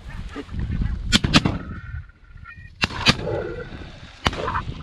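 Shotgun shots fired at flying geese: five sharp reports, mostly in quick pairs about a fifth of a second apart, with geese honking between them.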